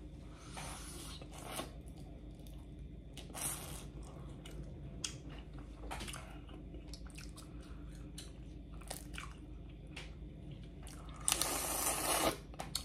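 Close-miked eating of boiled crawfish: scattered wet smacks, chews and small cracks of shell. Near the end comes a louder, noisy stretch of about a second as a crawfish is sucked at the mouth.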